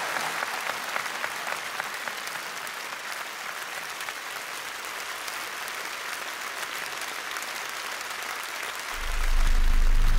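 Large audience applauding, a steady wash of clapping. About nine seconds in, music with a deep bass comes in and grows louder.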